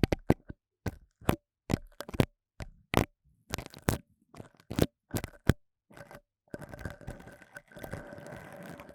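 Pipe cleaners (chenille stems) scratched close against the microphone in mock ASMR ear-cleaning. First come short, crackly strokes about twice a second; then, from about six and a half seconds in, a continuous scratchy rustle as the pipe cleaner is rubbed over the ear.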